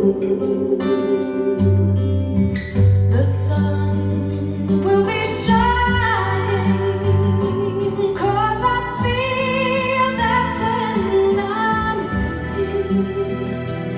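A recorded song played back through a pair of Altec 614 speaker cabinets with Realistic Americana 12-inch triaxial drivers: a woman singing slow, held phrases with vibrato over a soft accompaniment with low bass notes.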